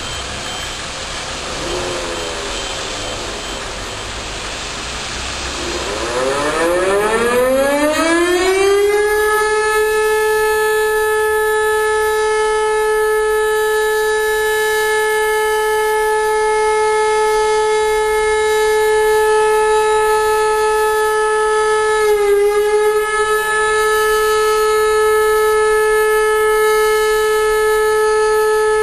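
Motor-driven civil defence siren starting up: after about six seconds of steady background noise its pitch rises for about three seconds as the rotor spins up, then holds a loud, steady howl, with one brief dip in pitch late on.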